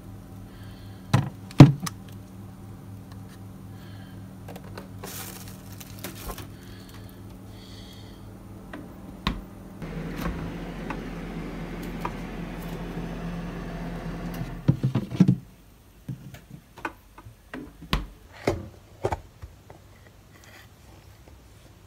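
A refrigerator door is shut with two sharp knocks about a second in, over a steady low hum that runs with a stretch of hiss until it stops abruptly about two-thirds of the way through. Near the end, a plastic spoon clicks and scrapes against a plastic food container as jelly is scooped out.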